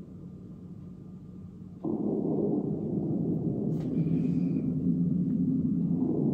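Slowed-down sound of kendo practice on a dojo floor, turned into a deep, muffled rumble. It jumps louder about two seconds in, and there is a brief click near the middle.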